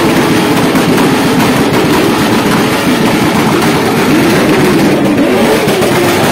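Motorcycle engine running loudly and being revved up and down over and over.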